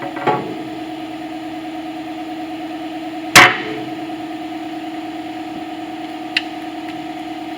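Steady machinery hum with two even tones. Over it come a light knock near the start, a single loud sharp clank of metal about three and a half seconds in, and a faint click about six seconds in.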